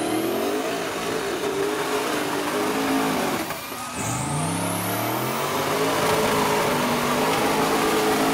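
Mud buggy engine revving hard under load as it drives through a mud pit on paddle tires. The revs drop briefly about three and a half seconds in, then climb again.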